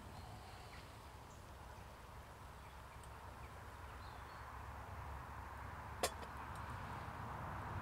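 Wood fire burning in a small stainless stick stove, a steady low hiss with a few faint crackles. About six seconds in, a single sharp clink as a metal coffee pot is set down on a stone slab.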